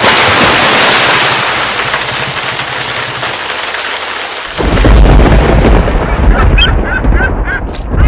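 Thunderstorm sound effect: a loud hiss of rain that comes in suddenly and slowly fades, then a deep rumble of thunder about four and a half seconds in. Near the end, a run of short, repeated bird calls begins over the rumble.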